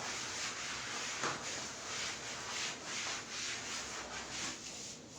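Hands rubbing and massaging a patient's body in brisk, repeated strokes, about two or three a second, a soft swishing of skin and cloth.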